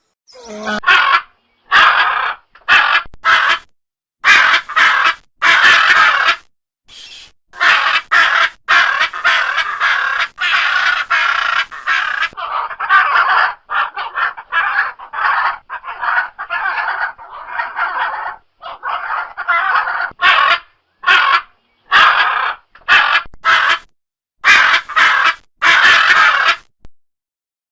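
Macaws squawking loudly: a string of harsh calls, some short and some in longer runs of several seconds, each breaking off abruptly into silence.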